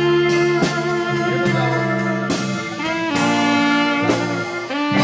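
Live band playing an instrumental passage: sustained keyboard notes and a horn-like lead line over a steady drum beat, with no singing.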